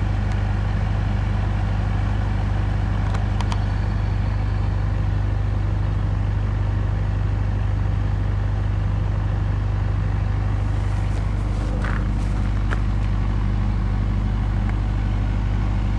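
A steady low hum that never changes in level, with a few faint clicks about three seconds in and again near twelve seconds.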